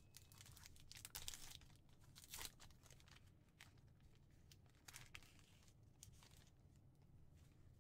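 Faint tearing and crinkling of a baseball card pack's wrapper as it is ripped open: a string of short crackles, loudest about one to two and a half seconds in, with a few more around five seconds.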